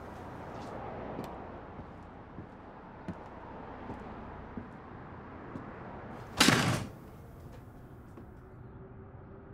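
A door shutting once, firmly, about six and a half seconds in, over a low steady room tone with a few light knocks and clicks before it.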